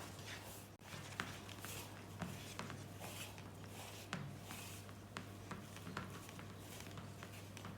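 Spoon stirring gram-flour batter in a bowl: soft scraping with scattered light clicks against the bowl, over a faint steady hum.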